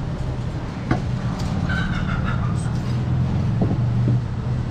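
A steady low engine-like hum throughout, with a light knock about a second in and a couple of faint taps later as a butcher's knife trims a goat leg on a wooden chopping block. A brief high-pitched call sounds in the middle.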